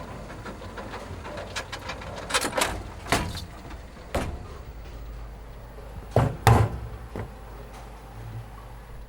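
A series of sharp knocks and clatters over a steady low rumble. A few light clicks come about a second and a half in, then single knocks follow at irregular intervals, the loudest pair about six and a half seconds in.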